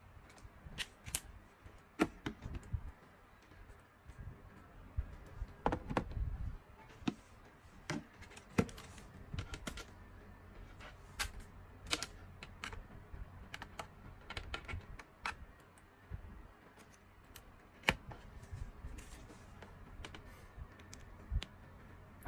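Irregular clicks, taps and a few soft thumps, as hands handle a plastic gadget.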